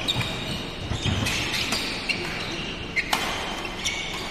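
Badminton rally: a few sharp racket hits on the shuttlecock, the loudest about three seconds in, with shoes squeaking on the court floor between them.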